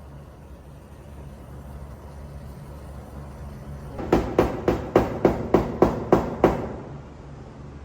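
A quick, even run of about nine light hammer taps on a car's sheet-metal panel during paintless dent repair, about three a second, starting about four seconds in: the metal being tapped down to level it.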